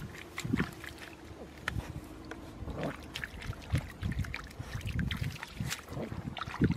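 Two small dogs pawing and nosing in a shallow muddy puddle: irregular small splashes and sloshes with rustling grass.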